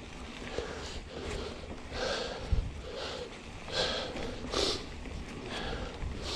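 A man breathing hard, short breaths about one a second, with a low thump about two and a half seconds in.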